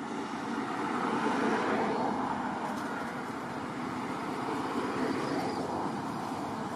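Steady rushing noise of road traffic, swelling as vehicles pass about a second in and again near the end.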